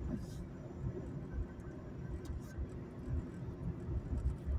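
Acura TL cabin noise at a steady cruise: low engine and road rumble heard from inside the car.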